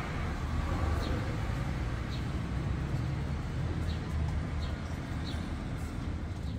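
Street ambience: a steady low rumble of traffic, with several short high bird chirps scattered through it.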